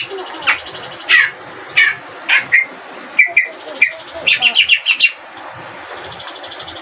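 A cage songbird singing: short sharp notes sliding downward about every half second, then a quick run of rapid notes about four seconds in, followed by a steady buzzy trill.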